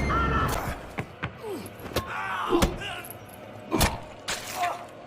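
A series of sharp impacts from blows with a metal pipe, with short sliding tones between them. The loudest hit lands a little before the four-second mark.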